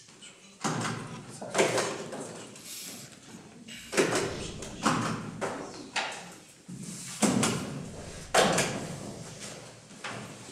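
Contract papers being handled and signed on a table: about seven sharp knocks and rustles at irregular intervals, each dying away quickly.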